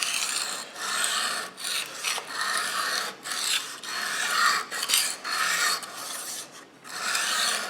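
Steel kitchen-knife edge scraped across a coarse 220-grit aluminium oxide sharpening stone in an angle-guide fixture. It makes about nine gritty strokes, a little over one a second, with short breaks between. This is the first grinding of the bevel to raise a burr along the edge.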